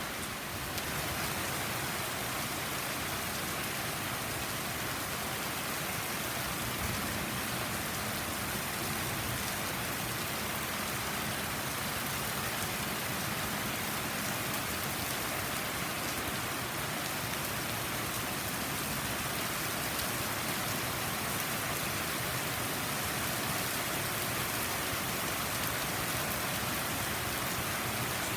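Heavy tropical-storm rain falling steadily, a dense, even downpour.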